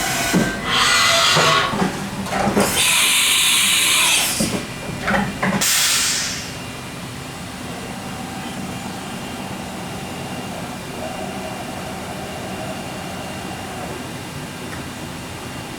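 Haas VF-5 CNC vertical machining center under power: loud bursts of hissing over the first six seconds, then a steady machine hum with a faint whine that comes and goes.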